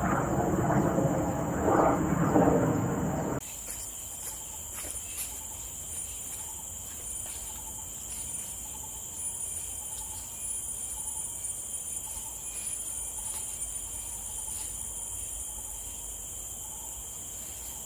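Insects droning in tropical woodland, a steady high-pitched hum, with a few faint bird calls and soft clicks. For the first three seconds or so a loud low rumble covers it, then stops suddenly.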